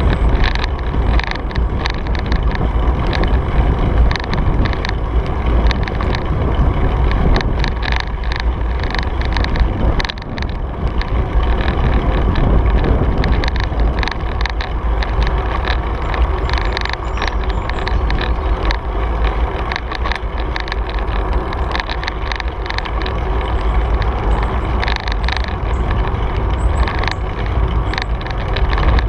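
Wind buffeting the microphone of a camera mounted on a moving bicycle: a steady low rumble, with tyre noise on the paved trail and frequent irregular clicks and rattles as the bike rolls over bumps.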